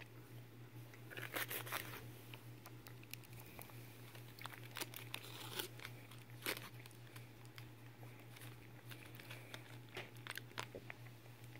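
Foil wrapper on a chocolate egg crinkling and tearing as fingers peel it off, in irregular crackles, with a denser burst about one and a half seconds in.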